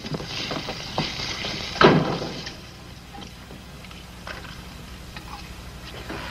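Pan being handled at a kitchen stove: a hiss with light clinks, one thump about two seconds in, then faint scattered clicks.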